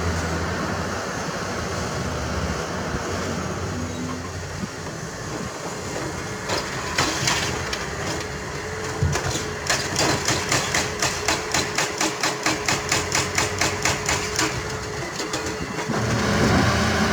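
Heavy excavator at work: a diesel engine running with a steady mechanical hum. Through the middle comes a quick run of metallic clanks, about four a second. The engine rises again near the end.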